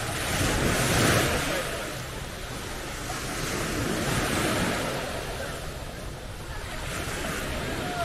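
Small waves breaking and washing up on a sandy beach, the surf swelling about a second in and again around four seconds in.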